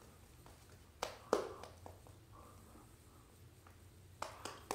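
Shaving brush working lather over the face and neck: a few short, wet strokes, two sharp ones about a second in and several more near the end.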